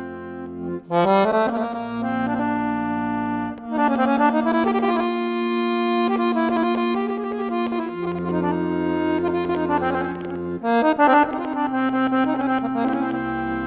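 Piano accordion playing solo: a melody on the right-hand keyboard over held bass notes and chords, with short breaks in the phrase about one and three and a half seconds in.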